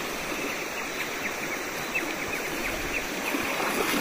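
A shallow river running over gravel and stones, a steady rushing of water.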